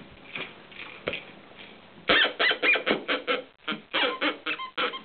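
Grunter noisemaker in a plush marmot dog toy being shaken by a dog. It gives a rapid run of short honking grunts, about five a second, starting about two seconds in.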